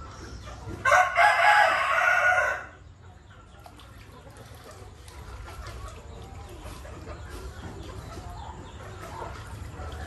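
A rooster crows once, loudly, for about a second and a half, starting about a second in. Fainter, softer sounds follow.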